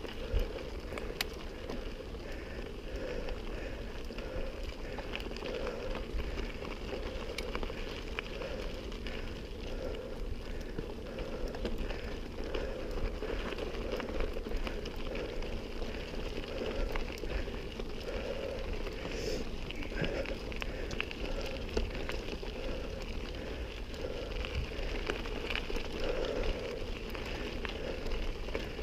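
Mountain bike tyres rolling over a loose gravel dirt track, a steady crackling crunch dotted with small clicks and rattles from the bike.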